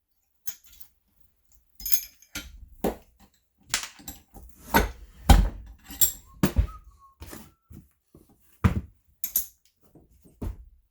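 Irregular knocks and thunks with a few bright metallic clinks as a leather tool belt and its metal drill hook are handled and fitted together, about a dozen in all, the loudest about five seconds in.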